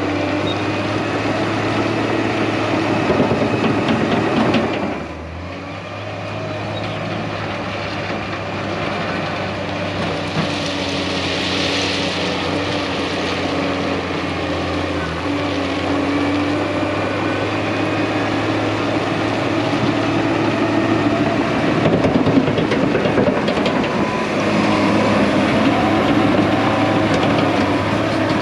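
Case crawler dozer's diesel engine running under load, its steel tracks clattering as it pushes a pile of dirt and rock with its blade. The engine note drops sharply about five seconds in, then builds again.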